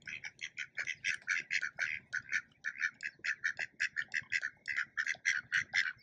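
Ducks calling: a steady, rapid run of short calls, about five or six a second.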